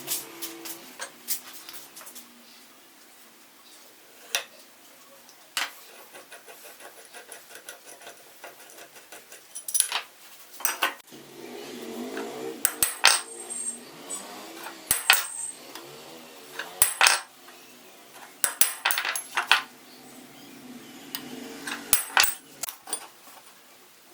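Metal parts and tools clinking and clanking: a long irregular series of sharp knocks and clinks, some ringing briefly, coming thicker in the second half.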